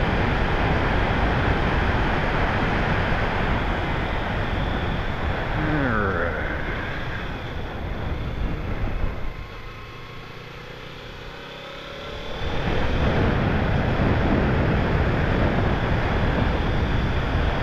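Wind rushing over the helmet microphone of a Kawasaki Ninja 300 parallel-twin sport bike on the move, with the engine running underneath. About nine seconds in the rush dies down for some three seconds, then comes back up.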